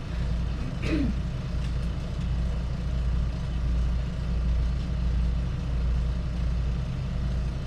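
A steady low hum with no distinct events in it, and a brief faint sound about a second in.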